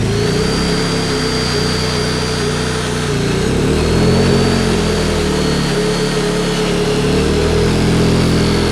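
Honda portable generator engine running fast under heavy load as a ram on the rescue tool is deadheaded, its pitch wavering as it labours, with a steady whine on top. This load is enough to overload the generator's circuit.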